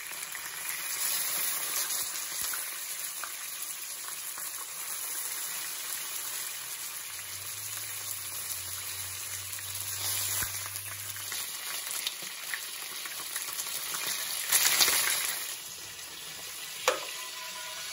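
Chicken breasts frying in shallow oil in a nonstick pan: a steady sizzle, with metal tongs working the pieces. The sizzling swells louder for about a second late on, and a single sharp click comes near the end.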